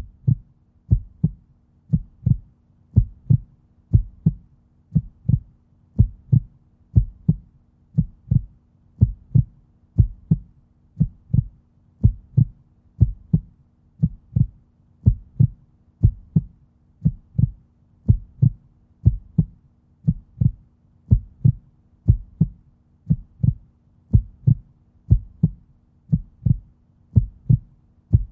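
Human heartbeat sound effect: a steady double thump, lub-dub, about once a second, deep and low.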